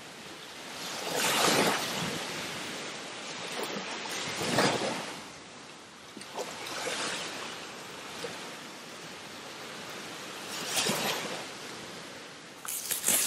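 Ocean surf: waves breaking and washing up the beach, the rush of water swelling and fading about four times.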